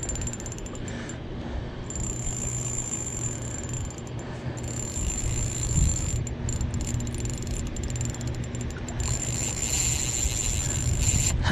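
Spinning reel clicking and whirring in runs of quick ticks while a large fish is played on the line, over a steady low rumble.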